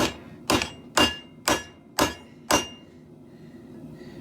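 Forging hammer striking a garden hoe on an anvil: six blows about two a second, each with a short metallic ring, stopping about two and a half seconds in.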